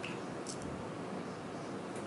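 Faint ticks of a screwdriver turning a small screw in a 2.5-inch laptop drive's mounting bracket, a couple of them about half a second in, over a steady background hiss.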